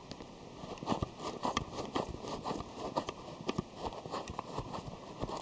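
Irregular small clicks and knocks, several a second from about a second in, from a Konica Autorex camera and its case being handled as the case's bottom screw is turned into the camera's tripod socket.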